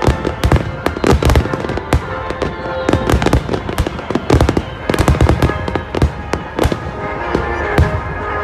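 Aerial fireworks bursting in quick succession: many sharp bangs and crackles overlapping one another, with music playing under them.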